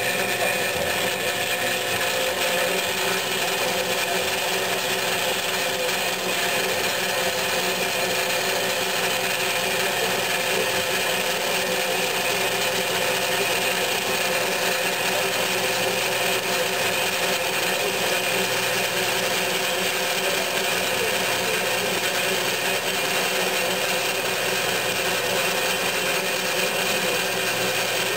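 Bianco 330SA band saw cutting through a square metal tube at its slow blade speed: a steady, even sawing noise with constant tones under it, with no change as the blade feeds down.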